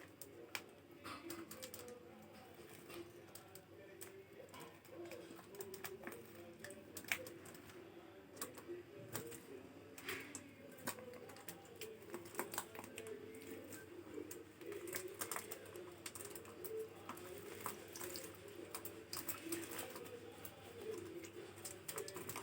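Pet budgies at a water bath: many small scattered clicks and light splashes, over a faint low wavering cooing bird call that runs on throughout.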